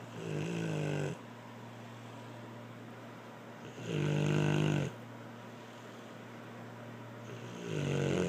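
Snoring: three drawn-out, pitched snores about four seconds apart, each lasting about a second, the last one near the end.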